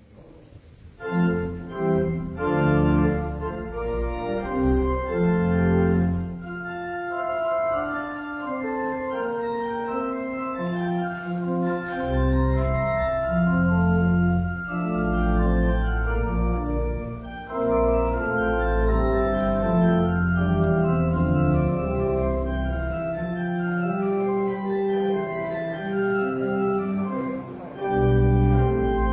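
Church organ playing slow, sustained chords over long-held pedal bass notes. It comes in after a brief pause at the very start.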